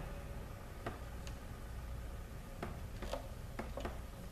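A few light, irregular clicks and ticks over a low steady hum, from work at the exposed valve body of a Subaru Lineartronic CVT.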